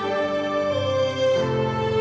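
Slow background music of long held notes, with a change of chord about one and a half seconds in.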